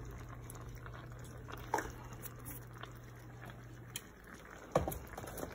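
Risotto simmering in a pan, with a low steady hum that stops about four seconds in and two short knocks, the second louder near the end.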